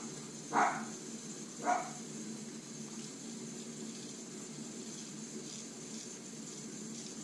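A dog barks twice in the first two seconds, short single barks. Then a straight razor scrapes faintly through lathered stubble over a steady low hum.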